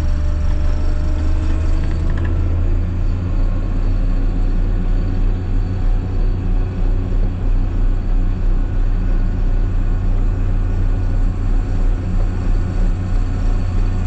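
Farm tractor engine running steadily under load, a loud, low, even drone, while it slowly tows a loaded silage dump wagon.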